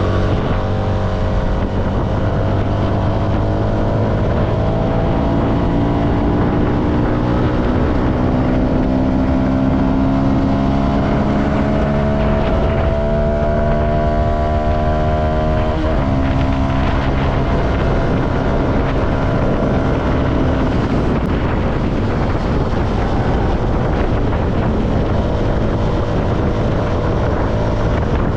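CFMoto motorcycle engine and exhaust under way, its pitch climbing steadily as it accelerates, then dropping suddenly about sixteen seconds in at an upshift; after that a steadier drone mixed with wind noise on the microphone.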